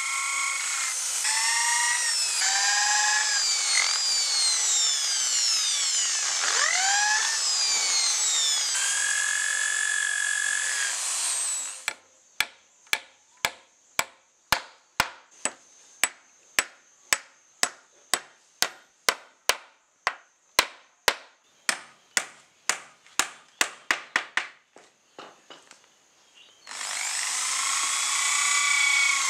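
Corded electric drill boring into a wooden frame, its motor whining and sliding up and down in pitch as it speeds up and slows, for about twelve seconds. Then a hammer drives nails into the wood with sharp, even strikes about two a second for roughly twelve seconds. Near the end the drill starts up again.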